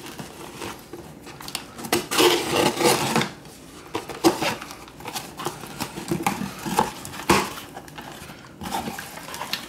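Utility knife slitting the packing tape on a cardboard box, with a rasping stretch about two seconds in, then the cardboard flaps being pulled open with scrapes and sharp knocks.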